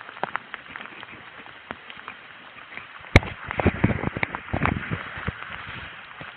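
Steady hiss of rain, with footsteps and scattered clicks as the person moves through it. About three seconds in comes a sharp knock, then a couple of seconds of rustling and bumping against the microphone.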